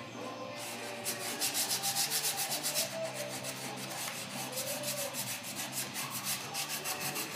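Sandpaper rubbing on the wood of a newly built cradle in quick, even back-and-forth strokes, about five a second, getting stronger about a second in.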